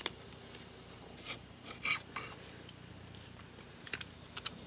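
Plastic Transformers action figure being handled and posed: light rubbing and scattered small clicks of its plastic parts and joints, with a few clicks together near the end.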